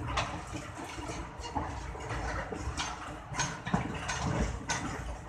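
Running noise of a moving passenger train, heard from inside the coach: a steady rumble with irregular clacks of the wheels passing over rail joints.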